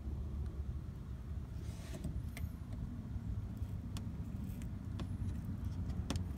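Scissors snipping through a thick rubber bumper-lip strip, a few sharp cuts a second or so apart, over a steady low rumble.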